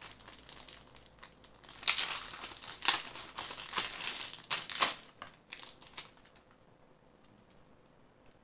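Plastic wrapping crinkling in the hands as a small rubber keychain is unwrapped. It comes in irregular rustles and crackles, with the loudest about two, three and five seconds in, and stops about six seconds in.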